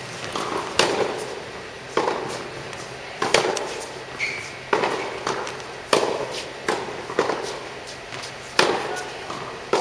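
Tennis ball struck back and forth with rackets in a practice rally: a sharp pock about every second and a quarter, with fainter bounces in between, echoing in an indoor tennis hall.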